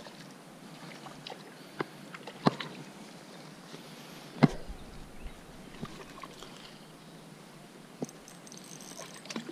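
Handling sounds of a light spinning rod and reel as a small hooked trout is reeled in: scattered clicks and knocks, the loudest about four and a half seconds in, over a faint steady hiss of water and open air.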